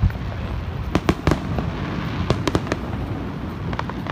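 Aerial fireworks bursting in quick succession: sharp bangs and crackles over a continuous low rumble, thickest about a second in and again a little past two seconds.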